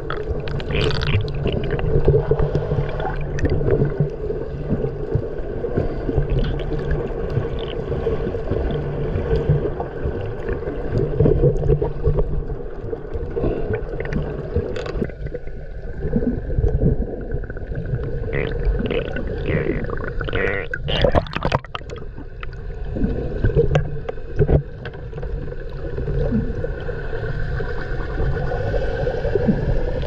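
Underwater sound picked up by a camera held below the surface while snorkeling: muffled rushing and gurgling water with a steady low drone. Between about 18 and 22 seconds in come a few short splashy bursts of bubbles.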